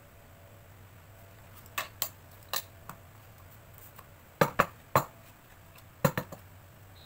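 Metal binder clips clacking as they are handled and set down on a paper cutter's board: a series of sharp clicks, loudest in a quick cluster about halfway through and another near the end.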